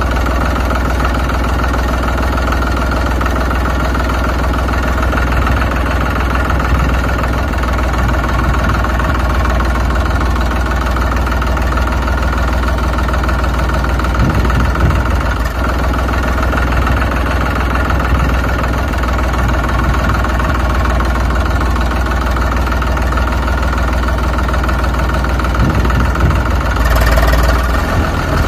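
Tractor engine idling steadily, a continuous low rumble that does not change.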